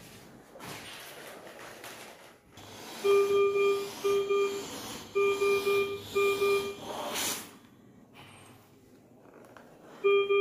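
Maquet Servo-air ventilator alarm sounding, two pairs of steady beeps about three seconds in and another pair starting near the end, with a brief hiss of air between them.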